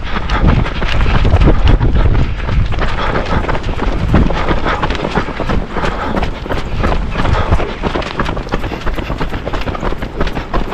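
Running footsteps, a quick run of sharp footfalls on a tarmac road, over a rumble of wind on the microphone.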